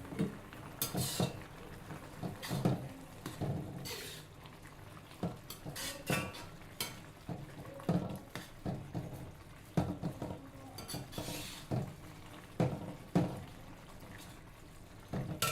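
Kitchen utensils knocking and scraping against pots and dishes: irregular clinks and clatters, about one or two a second.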